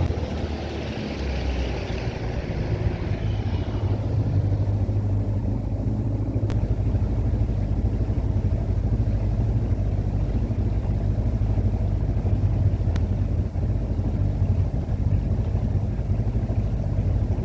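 Boat motor running steadily with a low drone, and a hiss that fades out over the first few seconds.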